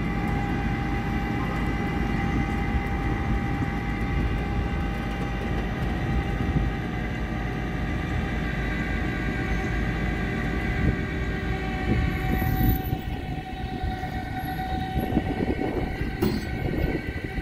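Heavy vehicle machinery working under strain to haul a pickup truck stuck in soft lawn: a steady whine of several held tones over a low rumble, the whine fading out about thirteen seconds in while the rumble grows rougher.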